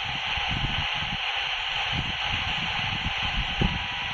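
FM radio tuned between stations, its speaker giving out a steady, unchanging hiss. This is noise generated inside the receiver's own circuitry, which the presenter takes to be probably thermal noise. Soft, irregular low thumps sit underneath the hiss.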